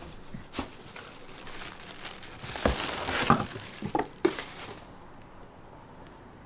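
Crinkling and rustling of packaging being handled, loudest about halfway through, with a few light knocks.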